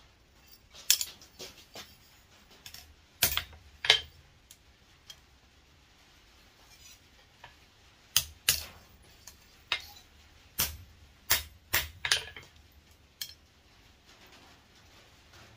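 Light hammer blows and metallic clinks on a small pair of steel blacksmith tongs lying on the anvil face, about a dozen irregular strikes in two bursts with a pause of a few seconds between.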